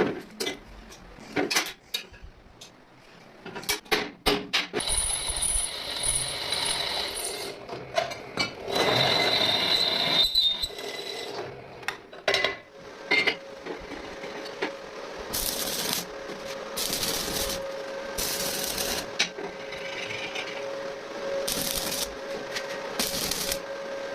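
Workshop tool noises: scattered clicks and knocks, two stretches of a small power tool running, then a steady hum with short hissing bursts at even intervals.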